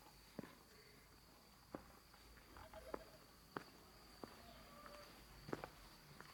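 Faint footsteps of someone walking, sharp short steps at uneven spacing about once a second, over a faint steady high tone.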